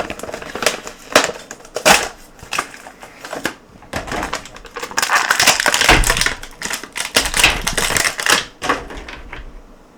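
Toy action figure's box and packaging being opened by hand, crinkling and clicking in quick runs of sharp crackles. The crackling is busiest from about five to eight and a half seconds in.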